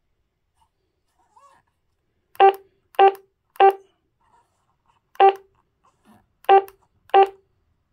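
Key beeps from a WURUI D300 mobile ham radio as its menu buttons are pressed: six short identical beeps, three about half a second apart, then three more spaced more widely.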